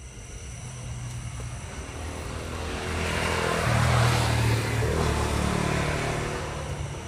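Motor vehicle passing by: its engine and road noise build, peak about four seconds in, then fade away.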